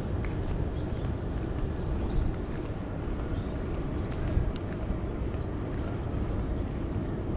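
Steady low rumble of outdoor urban ambience, with a few faint clicks here and there.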